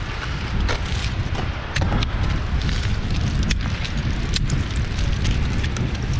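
Wind buffeting the microphone with a steady low rumble, broken by scattered sharp clicks and knocks.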